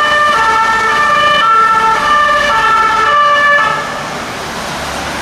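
Toy police bus's electronic sound chip playing a siren, its tones stepping up and down about every half second. About three and a half seconds in, the siren gives way to a quieter harsh hiss.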